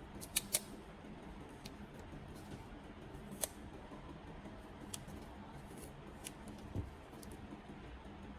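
A few sharp, sparse clicks: two in quick succession near the start, then single ones every second or so, with a dull low thump near the end.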